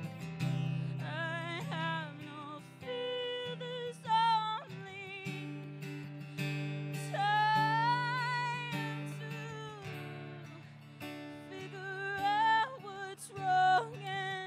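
A woman singing to her own strummed acoustic guitar, her long held notes wavering with vibrato over the steady chords.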